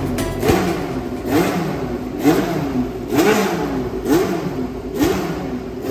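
Racing car engine being blipped, the revs rising and falling quickly about once a second.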